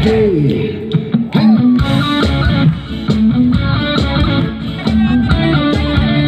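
Live band playing on stage, an electric guitar to the fore, with gliding bent notes near the start and a rhythmic figure from about two seconds in.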